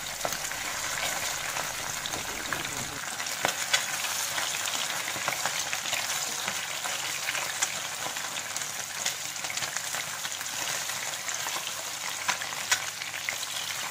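Pabda fish sizzling steadily as they shallow-fry in hot mustard oil in a non-stick frying pan. Scattered light taps and scrapes come from a wooden spatula as the fish are turned.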